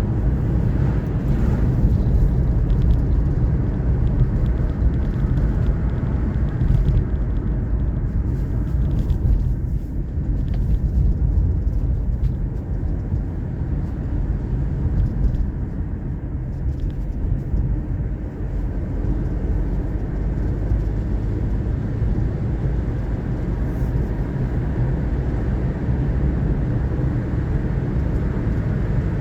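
A car driving at steady speed: a continuous low road and engine rumble.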